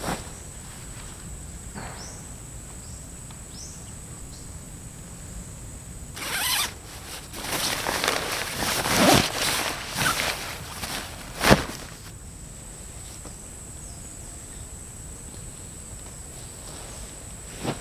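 A zipper being pulled open and closed several times, with gear rustling, about six seconds in and lasting some six seconds, ending with a sharp click. A faint steady high-pitched hum sits underneath.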